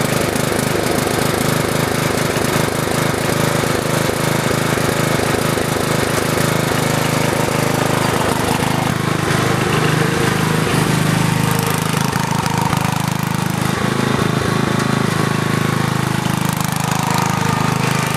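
Riding lawn mower's small engine running steadily with a rapid, even beat, just after it started on the first try.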